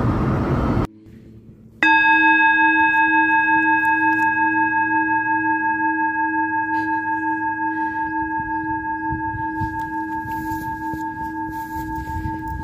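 Car road noise that cuts off about a second in. Then a single struck metal bell tone rings out, holding several steady overtones and fading slowly with a regular pulsing in its loudness.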